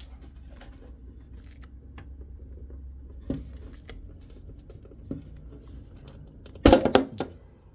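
Snap-on front panel of a PC case being pried off: single plastic clicks about three and five seconds in, then a loud burst of snaps and rattles near the end as the panel comes free. A low steady hum underneath.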